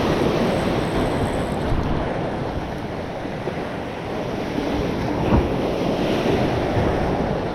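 Steady rushing of surf against a rock jetty mixed with wind on the microphone, with a single short knock a little past five seconds in.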